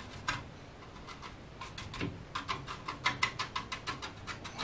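Watercolour brush dabbing and scrubbing paint on a palette to pick up yellow: a quick run of light taps and scratches, several a second, starting about a second and a half in.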